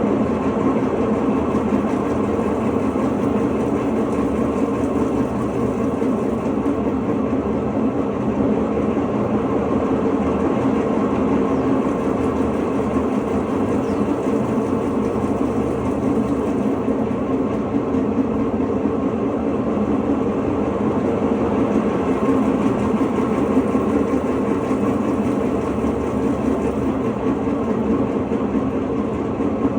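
Electrolux LTE09 washing machine in its intermediate spin, with the bearing rumbling steadily throughout: the sign of a worn drum bearing.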